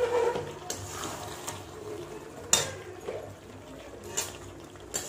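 A metal spatula stirring thick beaten yogurt into chicken pieces in a metal kadai, making wet mixing sounds. The spatula knocks against the pan several times, and the sharpest knock comes about halfway through.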